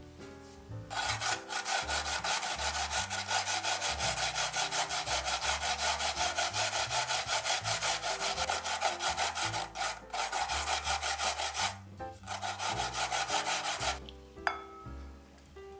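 Raw peeled potato being grated on a plastic grater: fast, even back-and-forth rasping strokes, about four a second, with a brief pause about twelve seconds in. The grating stops near fourteen seconds, followed by one sharp knock with a short ring. Soft background music plays underneath.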